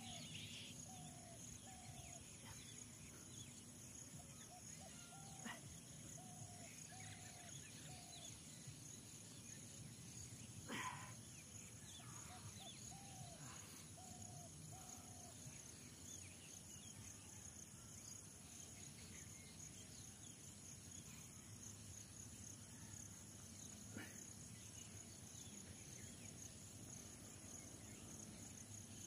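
Quiet outdoor ambience dominated by insects trilling steadily at a high pitch. Twice an animal gives a run of short repeated calls, and there are a few faint soft knocks.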